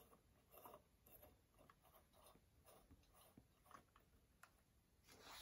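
Faint scraping and small ticks of a mercury-vapour lamp's metal screw base being turned into its lamp socket, with a slightly louder soft rustle near the end.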